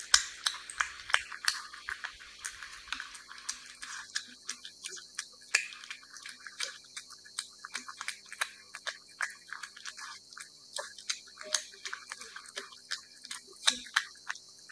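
A cat eating wet cat food, chewing and licking: a quick, irregular run of wet clicks and smacks, several a second, with one louder smack near the end.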